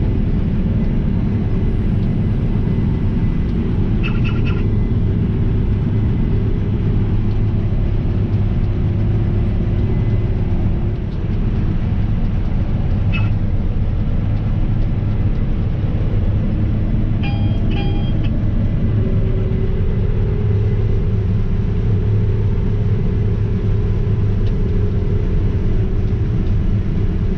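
Case IH 9250 Axial-Flow combine running steadily under load while harvesting wheat, a constant deep rumble with a steady hum. A few short high beeps sound over it, two of them close together about two-thirds of the way through.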